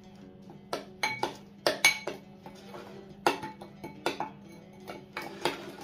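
Kitchen utensils and dishes clinking and knocking: about a dozen irregular sharp clinks, some with a brief metallic ring, over a faint steady hum.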